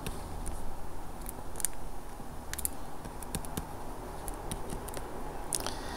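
Faint, scattered ticks and scratches of a stylus writing on a pen tablet.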